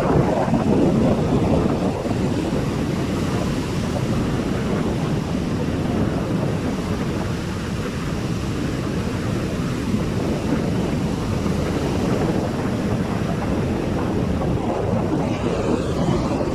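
Steady rushing noise of sea surf, with wind buffeting the microphone.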